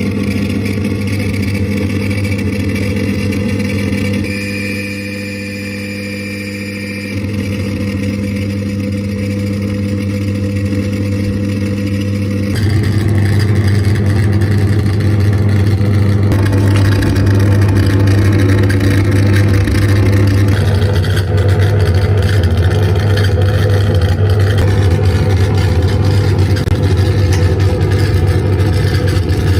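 Harsh noise drone: a loud, unbroken wall of low hum layered with buzzing hiss. It changes abruptly several times, thinning at about four seconds and growing louder and denser at about twelve seconds.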